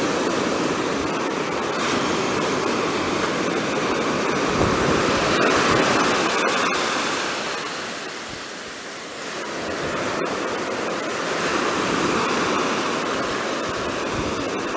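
Ocean surf breaking and washing up a sandy beach: a steady rush that swells and eases with the waves, dipping briefly about eight seconds in.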